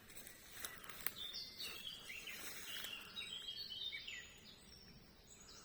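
Birds chirping and singing faintly in a series of short, high, stepping notes for a few seconds, with a couple of sharp clicks shortly before.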